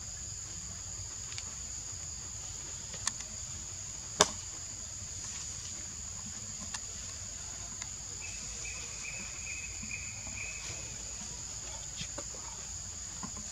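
Steady high-pitched drone of forest insects, with a few sharp clicks, the loudest about four seconds in, and a brief lower buzz from about eight to eleven seconds in.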